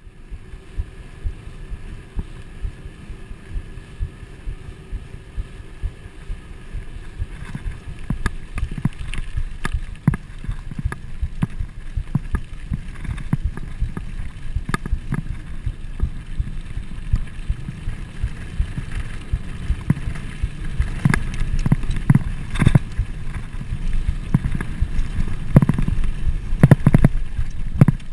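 Trek Fuel EX full-suspension mountain bike riding a dirt trail: tyres rumbling over the dirt, with the bike rattling and knocking over bumps. It grows louder and more jolting in the second half.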